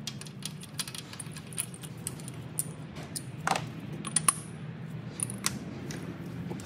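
Irregular sharp metal clicks and clinks of a 5/8 spark plug socket on an extension being fitted and turned in the plug wells to remove the spark plugs, with one brief ringing clink about four seconds in. A steady low hum runs underneath.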